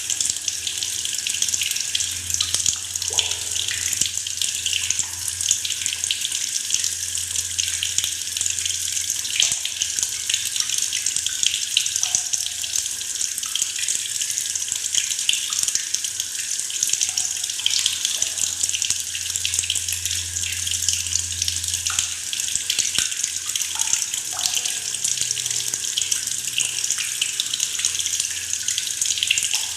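Tap water pouring steadily into a plastic bucket, a continuous splashing gurgle with small plops, over a faint low hum.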